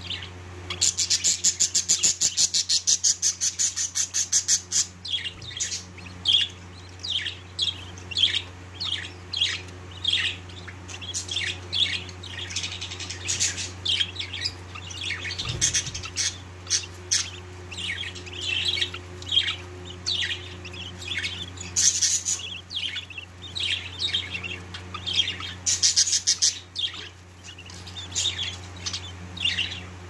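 Budgerigar hen and chicks chirping in the nest pot. About a second in comes a rapid, even run of high calls lasting some four seconds, then short chirps keep coming at irregular intervals. This fits young budgies begging during feeding. A low steady hum runs underneath.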